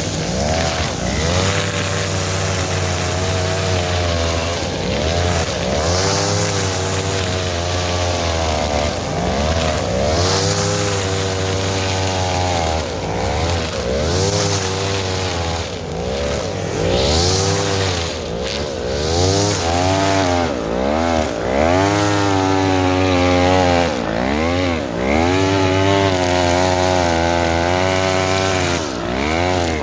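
Petrol brush cutter cutting through thick cogon grass. The engine's pitch sags and recovers over and over as the blade bogs down in the dense grass, with the dips coming more often in the second half.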